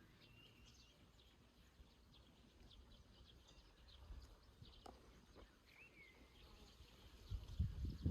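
Faint nature ambience: scattered short bird chirps and small call glides over a low background hum, with a low rumble building up near the end.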